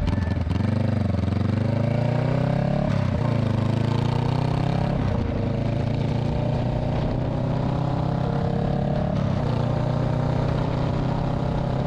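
Honda Rebel 500's parallel-twin engine through a Shortie GP slip-on exhaust, essentially a muffler delete, under way on the road. The exhaust note rises as the bike accelerates, drops sharply about three seconds in at an upshift, climbs again, then holds steady at a cruise.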